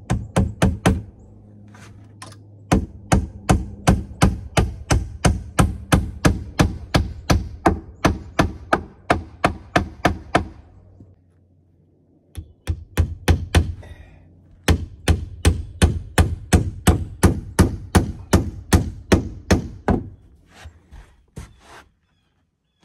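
Hammer driving nails into 2x4 lumber: quick, even blows about three a second in several long runs, with short pauses between nails and a few slower, lighter taps near the end.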